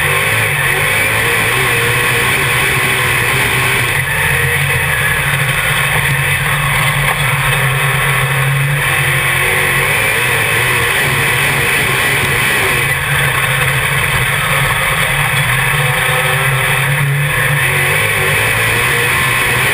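Dirt Modified race car's V8 engine at racing speed, heard from inside the cockpit: a loud, unbroken drone whose pitch rises and falls only slightly.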